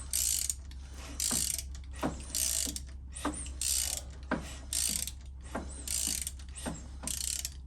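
Ratchet wrench worked back and forth in repeated strokes, about one a second, each stroke a click followed by a short burst of ratcheting. It is turning the TwinCam 96 engine over by hand to check that the rebuilt cam chest's lifters move.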